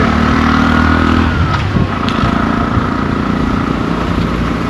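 A motor vehicle's engine running as it passes along the road, its pitch falling a little about a second and a half in, with wind noise on the microphone.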